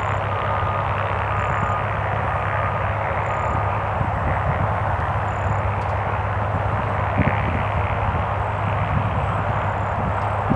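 Midget Mustang light airplane's piston engine running steadily at idle, its propeller turning.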